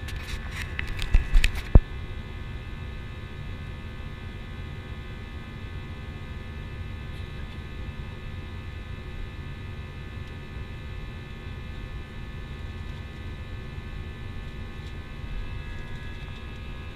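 Airbus A320 cabin noise after departure: a steady low rumble overlaid with a steady whine of several tones from the engines. A quick cluster of sharp clicks and knocks comes in the first two seconds, the last of them the loudest.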